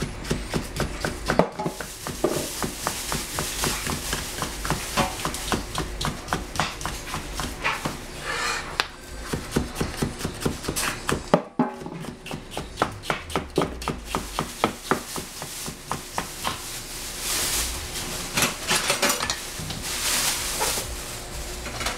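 Chinese cleaver slicing orange bell pepper into strips on a plastic cutting board: quick, even knocks of the blade on the board, a few a second, with a brief pause about halfway.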